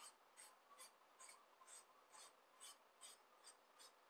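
Wooden beard comb drawn repeatedly through a beard, working in beard balm: faint, short strokes, about two or three a second.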